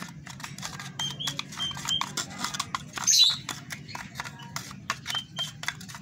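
A plastic feeding syringe clicking and tapping against a clear plastic cup as thick baby-cereal chick feed is stirred. Lovebird chicks chirp briefly now and then, with one louder squawk about three seconds in.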